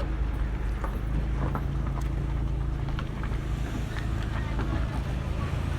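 Car running on the road, a steady low engine hum and rumble heard from inside the cabin, with faint scattered ticks.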